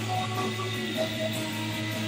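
Live noise-rock band playing: a continuous, steady droning wall of electric guitar and bass with long held tones.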